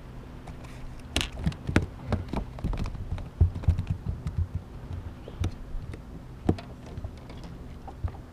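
Irregular clicks, taps and low knocks of a caught fish and fishing tackle being handled aboard a bass boat, over a steady low hum.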